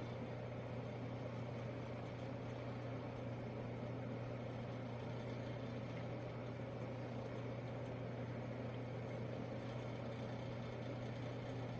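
A steady low mechanical hum with a constant deep tone and an even hiss over it, unchanging throughout.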